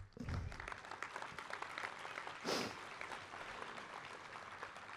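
Audience applauding, heard faintly, with a brief louder burst about two and a half seconds in.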